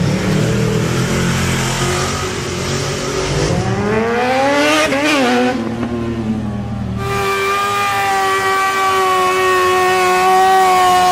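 Sport-bike engines at full throttle: about four seconds in, one revs up in a rising whine as the bike launches, then falls away. After that, a motorcycle held at high, steady revs while spinning its rear tyre in a burnout gives a sustained high engine note that sinks slowly in pitch.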